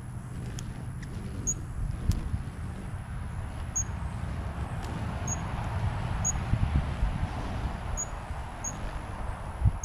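Wind rumbling and buffeting on the microphone, with short high chirps repeating about once a second and a soft whirring that swells in the middle.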